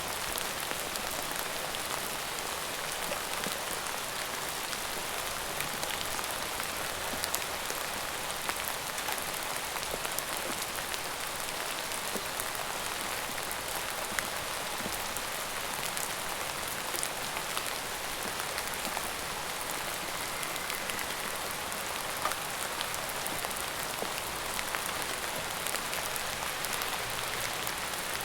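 Steady rain falling on a surface: an even hiss with scattered individual drops ticking.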